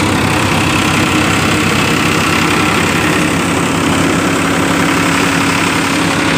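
Farmtrac 45 tractor's diesel engine running steadily, heard up close at the engine side, with a steady hum that grows stronger about three seconds in.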